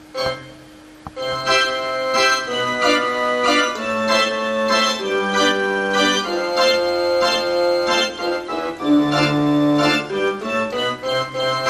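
Casio CTK-4400 portable keyboard being played: a single chord that fades away, then from about a second and a half in a steady run of melody notes over held chords.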